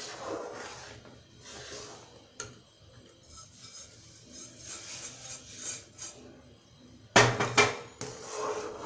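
Metal spoon stirring semolina into milk in an aluminium kadai, scraping and clinking against the pan, with a short run of loud metal clanks near the end.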